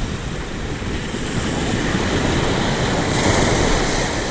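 Surf breaking on the beach, the wash swelling to a peak about three seconds in, with wind gusting on the microphone.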